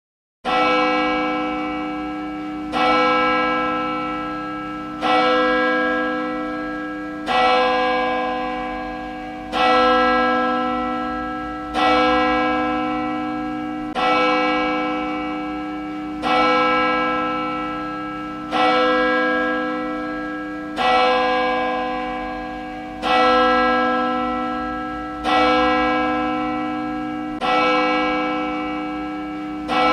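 A church bell tolling slowly and evenly, one strike about every two seconds, the same note each time, each strike ringing on until the next.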